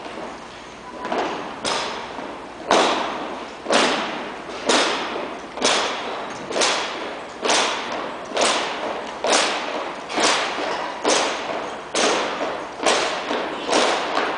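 A drill team stamping in step on a hardwood gym floor: sharp thuds about once a second, each echoing in the hall. They begin about two seconds in and keep a steady cadence.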